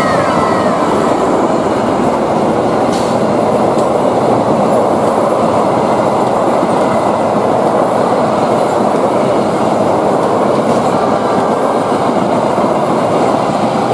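Argo Sindoro express passenger train, hauled by a CC 206 diesel-electric locomotive, passing close by at speed: a steady, loud rush and rattle of coach wheels on the rails. A brief falling tone sounds in the first second.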